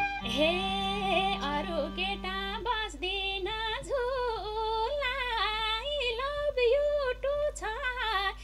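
Women singing a Nepali lok dohori melody together, high and ornamented, with almost no instruments behind them; a steady held low note drops out about two and a half seconds in.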